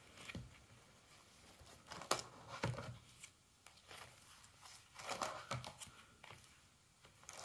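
Plastic binder pages and sleeved cards being handled and turned: a few short crinkles and rustles with quiet gaps between.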